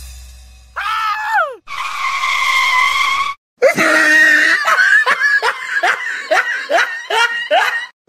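A person's high-pitched scream, first sliding down in pitch and then held for about a second and a half, followed by a run of rapid, hard laughter.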